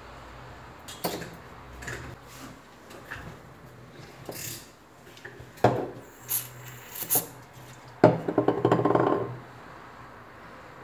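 Small clicks and taps of metal tweezers and a pick working on a tiny phone part on a silicone mat. This is followed by a few short hisses from an aerosol cleaner can sprayed onto a cotton swab, used to clean the oxidized metal switch dome of the power button. About eight seconds in comes a louder, noisy burst lasting just over a second.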